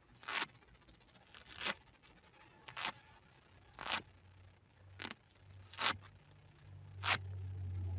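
Velcro hook-and-loop fastener being pulled apart again and again: seven short ripping strokes, about one a second.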